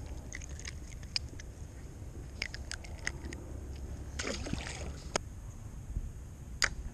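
Handling a fishing rig from a kayak: scattered small clicks of hands and tackle, then a light splash about four seconds in as the cast bait lands in the water, with a low rumble of wind on the microphone underneath.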